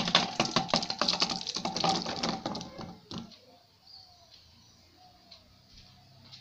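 A dense, rapid clatter of small hard objects rattling together for about two and a half seconds, then a single knock, then a few faint bird chirps.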